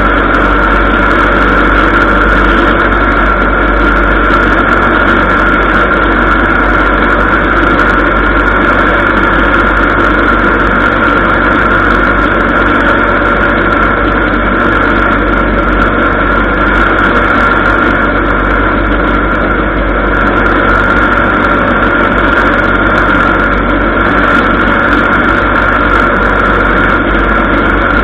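ULPower engine and propeller of a Zenith 750 light aircraft running steadily at takeoff and climb power, heard from inside the cockpit.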